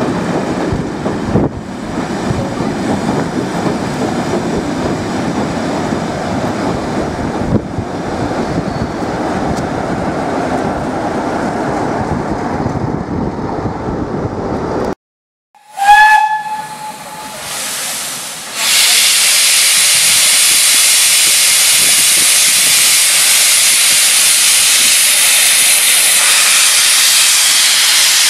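A train of passenger coaches rumbles past on the rails. After a break, a steam locomotive gives one short whistle blast, then a red saddle-tank engine sends off a loud, steady hiss of escaping steam.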